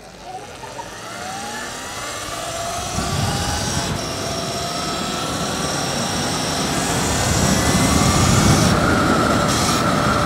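Electric bike's motor whining under full throttle, its pitch slowly rising as it picks up speed, with a rushing noise building alongside.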